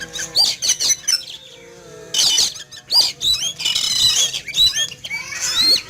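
Oriental magpie-robin (kacer) singing loudly in rapid clusters of varied whistles and chirps, with brief pauses between the bursts.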